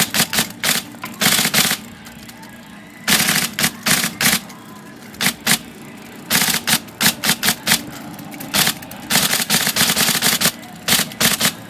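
IBM Selectric III electric typewriter clattering in quick bursts as keys are run across the keyboard, sharp strokes sometimes coming singly and sometimes in rapid runs. The keys are being worked to spread solvent through a sticky interposer ball-bearing tube.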